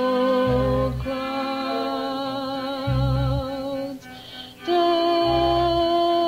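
Jazz-fusion band playing a slow piece live: long held melody notes with a wavering vibrato over low bass notes that come round every couple of seconds. The sound drops out briefly about four seconds in.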